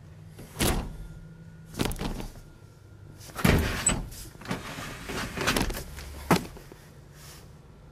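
A string of knocks, bumps and scuffles inside a stripped car interior, a person shifting about in the seat with handling noise on a handheld camera. About five or six separate bumps, with a longer stretch of rustling in the middle.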